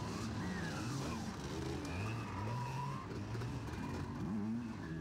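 Several two-stroke enduro dirt bikes revving at once, their engine notes rising and falling over one another as the bikes pull away from the start.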